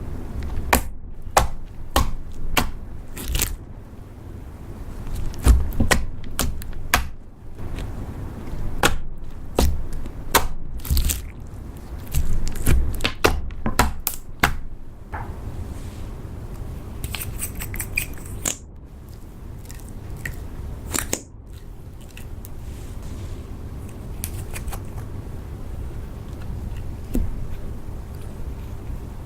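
Slime being pressed, squished and stretched by hand, with many sharp crackling pops and clicks that thin out about halfway through.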